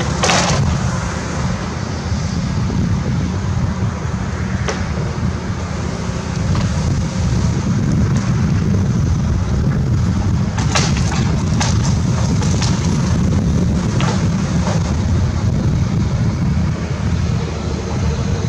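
Wind rumbling on the microphone over a Volvo excavator at work. Wooden framing cracks and snaps several times, with a cluster of cracks about eleven to twelve seconds in, as the excavator tears at the timber structure.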